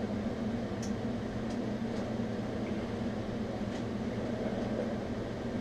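Steady electrical machine hum with fan noise in a welding shop, with a few faint light clicks as gear is handled.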